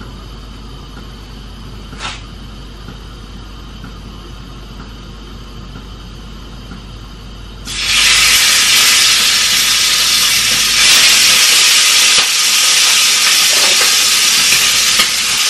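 Food sizzling in hot oil in a frying pan on a gas hob. A loud, even hiss starts suddenly about eight seconds in, after a quiet stretch of low hum.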